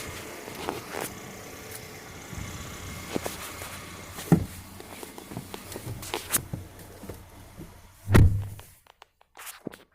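2020 Ford Ranger's 2.3-litre EcoBoost four-cylinder idling shortly after a cold start, with a buzz and rattle that the owner traces to the direct-injection fuel pump on top of the engine, along with scattered clicks. About eight seconds in there is a loud thump, and the sound then drops to near silence.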